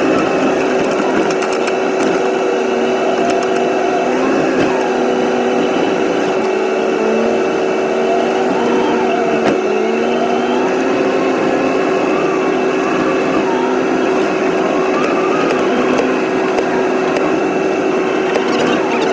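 A vehicle engine running steadily with a constant whine, its pitch wavering a little as the revs change.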